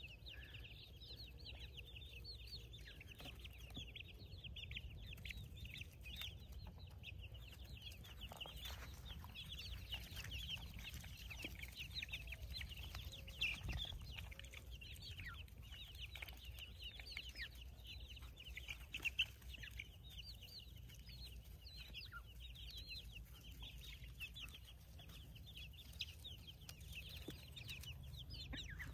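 A flock of baby chicks peeping: many short, high peeps overlapping without a break, each falling in pitch, with a couple of brief knocks.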